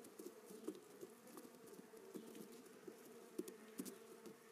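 Faint, uneven buzzing of fruit flies inside a foil-covered glass jar held up close to the microphone, with a few light ticks.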